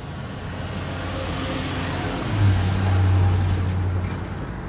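A motor vehicle driving past, its engine hum and tyre noise swelling to a peak about three seconds in and then fading.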